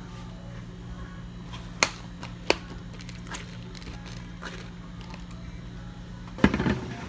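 Plastic dome lids pressed onto plastic iced-drink cups: two sharp clicks about two seconds in, over a steady low hum. A short burst of clattering near the end.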